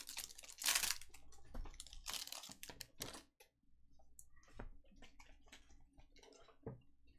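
Trading cards and foil pack wrappers being handled: a run of crinkles, rustles and light clicks, busiest in the first few seconds and then scattered.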